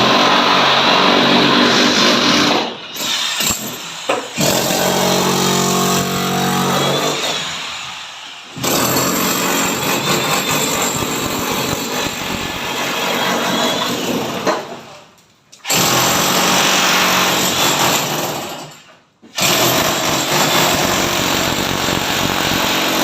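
A power tool running loud in long bursts of several seconds, stopping briefly four times between them; for a few seconds near the middle a steady motor hum sounds under the noise.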